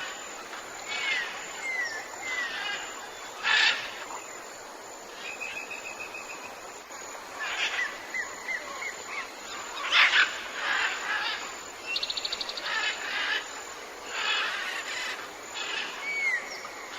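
Tropical jungle birds, several calling at once over a steady hiss of forest ambience. The calls include short curving whistles, a run of repeated even notes around six seconds in, and a fast high trill about twelve seconds in.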